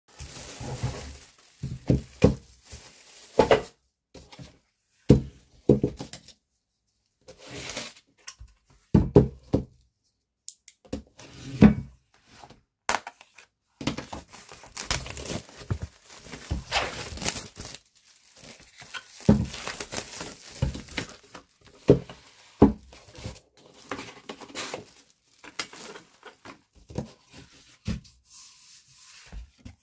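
Plastic wrapping rustling, crinkling and tearing as it is pulled off a stretched canvas, with scattered knocks and thuds from the canvas's wooden stretcher frame being handled.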